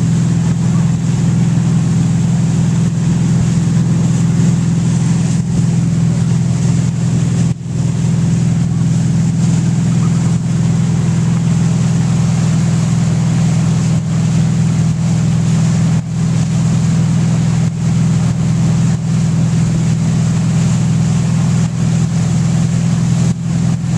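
Malibu wake boat's inboard engine running with a steady low hum as it tows a wake surfer, over the rushing wash of the wake and wind on the microphone.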